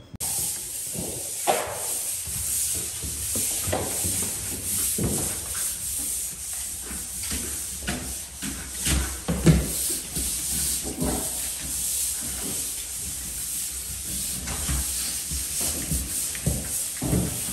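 Pole sander scraping sandpaper back and forth over dried drywall joint compound on a ceiling: a continuous scratchy hiss that swells with each irregular stroke.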